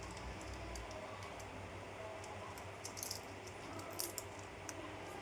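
A few small sharp clicks and taps over faint room noise, the loudest about three and four seconds in.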